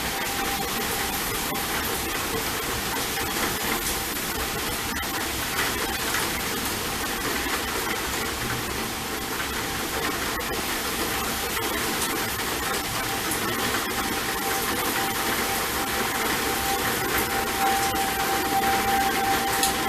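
Federal Signal 2001-SRNB tornado warning siren several blocks away, sounding a steady tone. The tone fades through the middle and comes back louder near the end as the siren rotates. It sits under a loud, even rush of storm noise.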